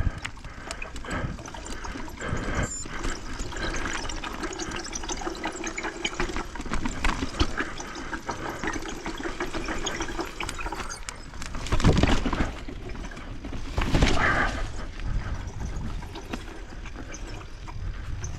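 Mountain bike rolling down a rock slab: tyres rumbling over rock and the bike rattling over a steady rushing noise, with two harder jolts about twelve and fourteen seconds in.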